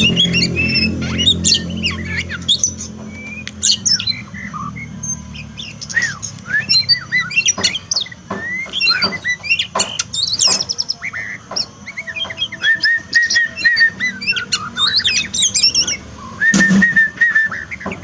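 A songbird singing a rapid, varied song of sharp chirps, whistled glides and squawks, with trilled runs on one pitch twice in the second half. It is a master song recording played to train a pet oriental magpie-robin (kacer) to sing.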